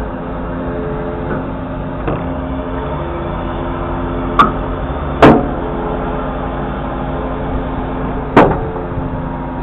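Volvo FE 320 truck's diesel engine running steadily to power the HIAB crane's hydraulics while the crane swings its empty grab back. Three sharp metallic clunks from the crane and grab, about four, five and eight seconds in.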